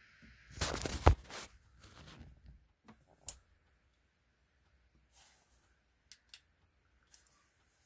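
Handling noise from the camera: a burst of rustling with one sharp click about a second in, then softer rustling and a few scattered light clicks and taps. A steady hiss cuts off just before the rustling starts.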